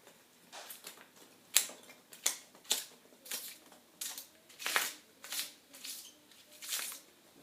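Packaging being handled as a package of wire is unpacked from a shipping box: about a dozen short, irregular crinkles and rustles.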